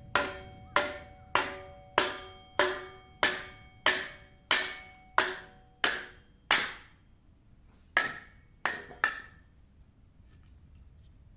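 Firewood being split by hand, a tool striking the wood again and again. Each hit is a sharp woody knock with a brief ring, about one and a half a second, eleven in a row. After a short pause come three more hits, and then they stop.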